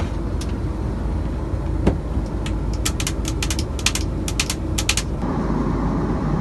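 Steady low drone of an airliner cabin. From about three seconds in comes a quick run of clicking taps, long acrylic fingernails tapping on the lavatory's plastic wall panels.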